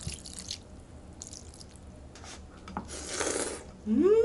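Water poured from a plastic cup into a pan of ramen broth, briefly at the start. About three seconds in comes a noodle slurp, then a short hum that rises and falls in pitch.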